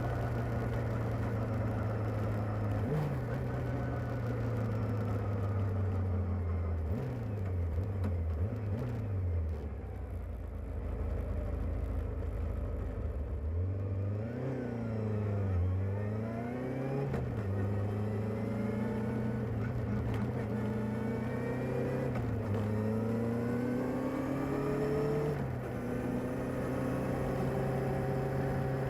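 Kawasaki ZR-7S motorcycle's air-cooled inline-four engine on its stock exhaust, running with its engine speed rising and falling several times.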